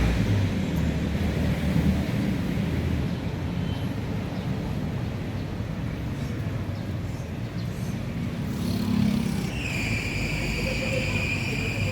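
Vehicle engine and road noise: a steady low rumble, joined near the end by a steady high-pitched tone.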